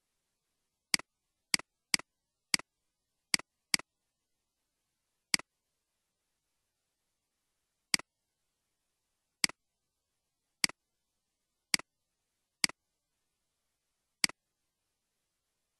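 Computer mouse button clicks: about thirteen short, sharp clicks at uneven intervals, bunched in the first few seconds and then spaced a second or two apart, with dead silence between.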